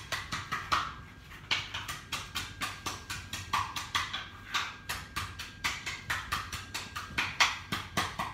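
Rapid, slightly uneven knocking, about four to five strikes a second: the base of a bottle used as a pestle pounding diced potato against the bottom of a metal tin, crushing it to release its juice.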